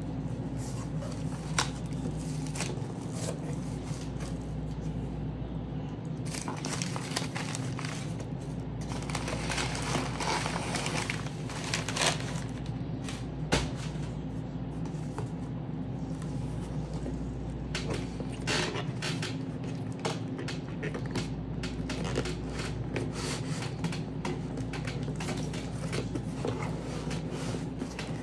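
Packaging being handled and opened: rustling and crinkling, with scattered small clicks and knocks, over a steady low hum.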